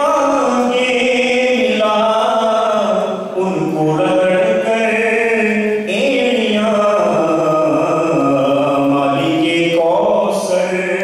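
A man chanting solo in long melodic phrases, holding notes and sliding between pitches, with brief breaths about three seconds in and again near six seconds.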